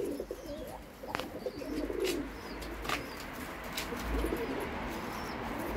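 Domestic pigeons cooing in low, throaty bouts that come several times, with a few sharp clicks in between.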